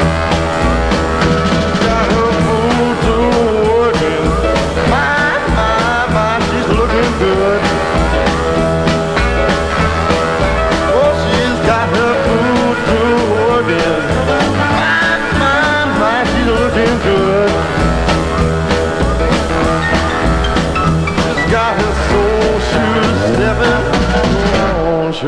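Background rock music with singing over a steady beat.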